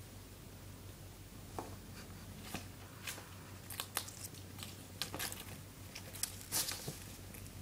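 Eclectus parrot playing with a plush ball, its beak and feet making irregular small clicks and scratches that come thicker from about four seconds in.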